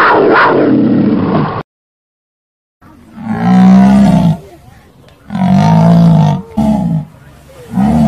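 A black panther's roar cuts off about a second and a half in. After a second of silence, a jaguar roars over and over: low calls about a second long, then shorter ones toward the end.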